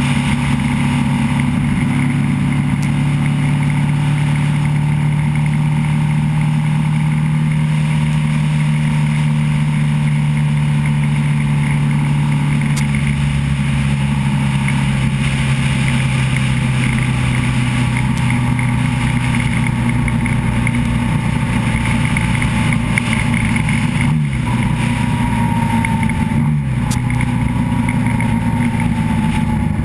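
Motorcycle engine running steadily at cruising speed, heard on board with wind and road noise. Near the end the engine note dips briefly three times.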